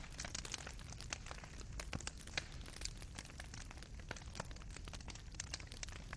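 Fireplace fire crackling: irregular sharp pops and snaps of burning coals, several a second, over a low steady rumble of the flames.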